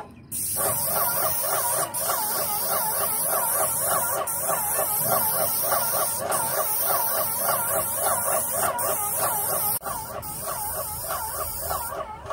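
Paint spray gun spraying roof paint: a steady hiss, broken by short gaps every couple of seconds, with a rapid, repeating squeaky chirping running alongside it.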